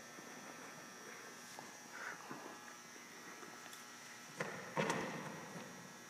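Quiet room tone of a large hall with a steady faint hiss and a thin high hum, broken by two short soft knocks or shuffles about four and a half and five seconds in, the second the louder.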